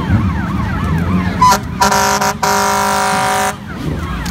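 Fire engine siren wailing up and down rapidly, then a loud air horn blast of nearly two seconds, broken once by a brief gap.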